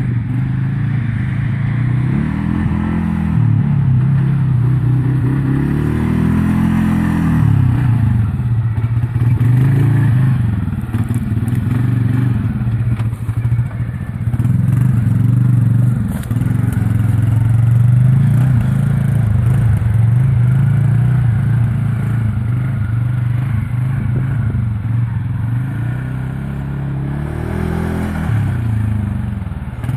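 Can-Am Outlander 400 Max ATV's single-cylinder four-stroke engine running while being ridden, its pitch rising and falling over and over as the throttle is opened and eased off.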